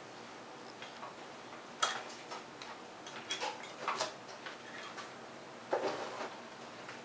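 Scattered light clicks, clinks and knocks of hard parts being handled, a handful in all, with a sharp knock about two seconds in and a duller clatter near the end.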